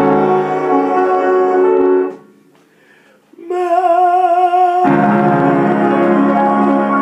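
Man singing a gospel tenor part to his own piano accompaniment. Sustained sung chords and piano break off about two seconds in. After a brief pause he holds one sung note with vibrato, and a full piano chord enters under it near the five-second mark and rings on.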